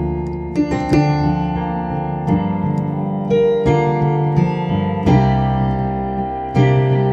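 Solo piano playing a slow gospel ballad: full chords struck and held, a new chord every second or so.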